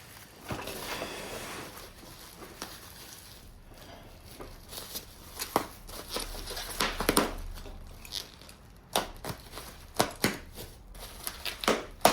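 Plastic bubble wrap and packing being handled and pulled away, crinkling and rustling with irregular crackles and taps.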